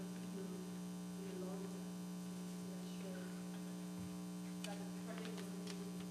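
Steady electrical mains hum with its overtones, under a faint, distant voice speaking off-microphone. A few small clicks come about four and a half to five and a half seconds in.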